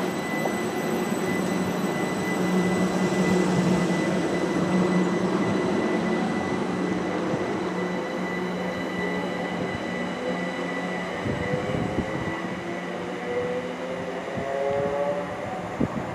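Class 379 Electrostar electric multiple unit pulling away from the platform. Its electric traction equipment gives a steady hum, then from about halfway through a whine that climbs in pitch as the train accelerates, with a few sharp clicks near the end.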